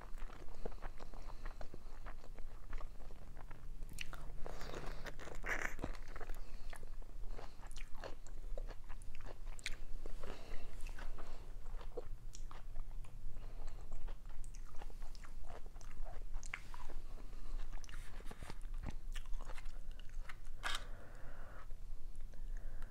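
Close-miked chewing of a mouthful of dolmas (stuffed grape leaves) and salad: many small irregular mouth clicks and smacks throughout.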